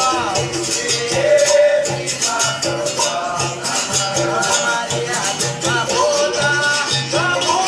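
Capoeira music: a berimbau playing a steady repeating rhythm, with the dry rattle of a shaker keeping time.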